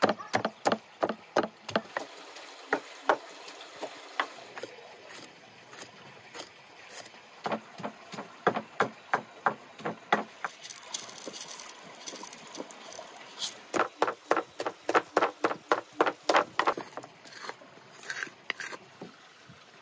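Rhythmic chopping with a knife on a wooden board: runs of quick, even strokes, about three a second, broken by short pauses.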